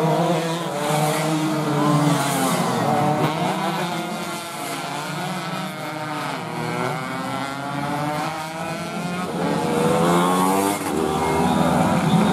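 Several two-stroke 125 cc underbone racing motorcycles at high revs, their engine notes overlapping and rising and falling in pitch as they pass one after another. Louder near the start and again from about ten seconds in.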